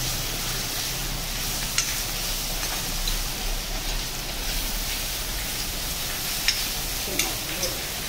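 Sliced onions and ginger–green chilli paste sizzling in hot oil in a black kadai while a steel spoon stirs them. A few sharp clicks of the spoon against the pan come about two seconds in and three times near the end.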